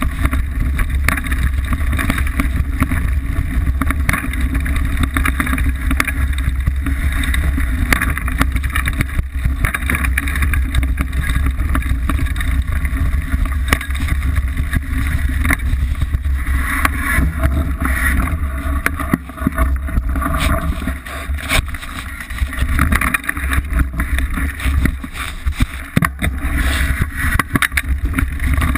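Liteville 301 full-suspension mountain bike running fast down rocky singletrack: constant rattling and knocking of the bike and tyres over rocks and roots, under a heavy rumble of wind buffeting the microphone.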